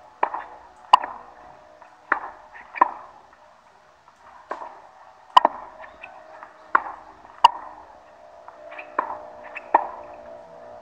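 Tennis balls struck by rackets in a volley drill: five pairs of sharp hits, the two hits of each pair about 0.7 s apart, each pair a fed ball and the volley that sends it back.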